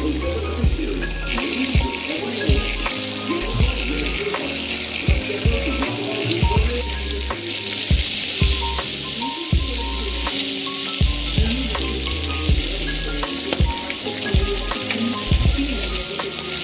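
Breakfast frying in a pan: a steady sizzling hiss with scattered sharp clicks, over background music with a bass line.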